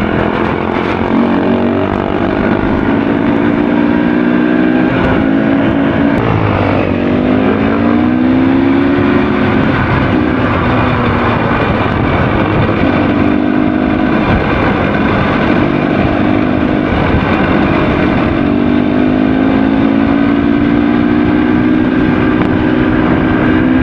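Enduro motorcycle engine running on a trail ride, its revs rising and falling several times. The sound cuts off suddenly at the very end.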